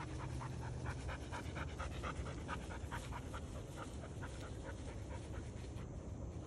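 Rapid rhythmic panting, about four breaths a second, fading after about four seconds.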